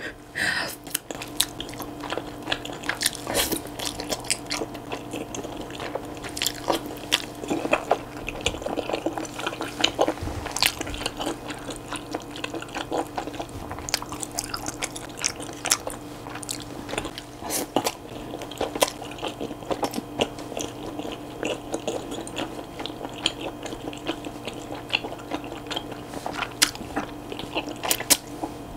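Close-miked wet chewing and slurping of thick, rubbery Chinese glass noodles coated in spicy sauce, with many quick sticky mouth smacks and clicks in an uneven run.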